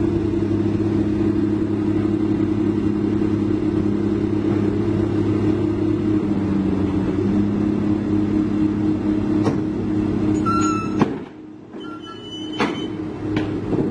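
Komatsu PC200-8 excavator's six-cylinder diesel engine running steadily while the boom and bucket are worked. About eleven seconds in, the engine sound drops away for a moment, with a few sharp clicks and short high squeaks, then comes back.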